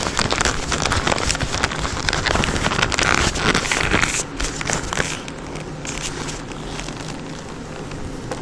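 Harley-Davidson Sportster Seventy-Two's 1200 cc air-cooled V-twin running at low speed through its loud pipes, with a louder crackling stretch that eases about halfway through to a steadier engine note.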